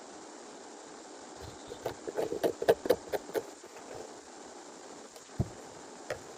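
A quick run of about eight light knocks or taps, then a single dull thump and one more small knock, over a steady hiss.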